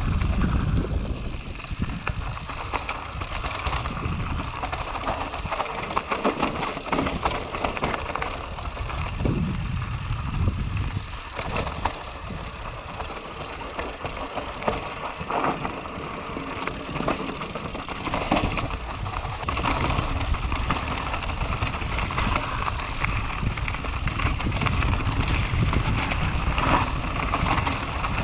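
Mountain bike ridden downhill on a dirt singletrack, heard from a camera on the rider: steady wind rumble on the microphone, with tyre noise and frequent rattles and knocks from the bike over bumps.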